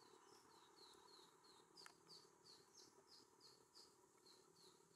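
A small bird calling faintly: a steady run of short, high chirps, about three a second, each dipping slightly in pitch. There is a single faint click a little under two seconds in.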